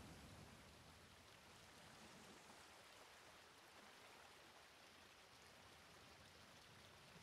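Near silence with a faint, steady hiss.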